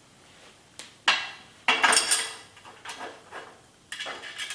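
Metal bike parts and tools clanking and clinking during handlebar fitting: a knock about a second in, a louder run of clinks with ringing around two seconds, and another clatter near the end.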